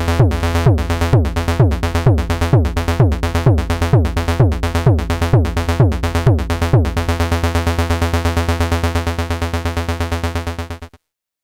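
Modular synth bass line ducked by a four-on-the-floor kick drum, each kick a thud with a falling pitch: sidechaining, so the bass pauses every time the kick hits. About seven seconds in the kick stops and the bass runs on alone in steady rapid pulses, then everything cuts off suddenly near the end.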